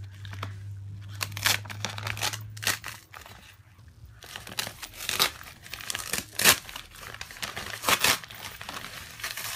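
Plastic mailing bag being torn open and crumpled by hand: an irregular run of sharp crinkles and rips.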